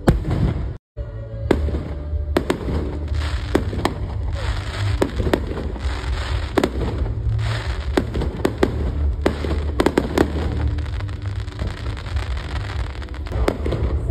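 Fireworks going off in a rapid string of sharp bangs, about two a second, thinning out near the end, over a steady low rumble. The sound drops out for a moment just under a second in.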